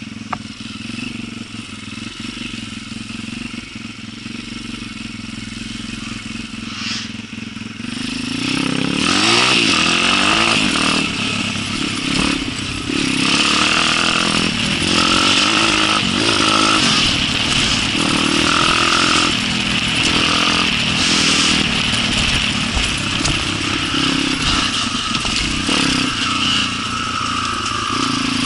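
Small single-cylinder enduro motorcycle engine running steadily at low revs. About eight seconds in it gets louder, revving up and down as the bike rides, with rattling knocks over rough ground.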